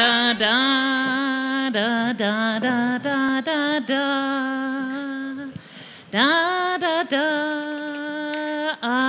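A woman singing a slow German song alone with no accompaniment, holding long notes with slides between them, with a brief break about five and a half seconds in.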